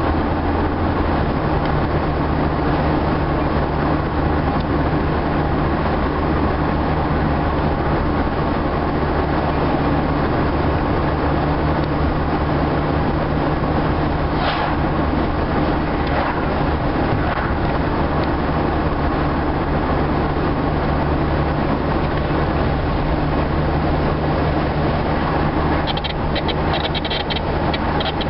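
Steady road and engine noise inside a moving car's cabin at highway speed, with a low hum running under it. Near the end comes a quick run of clicks.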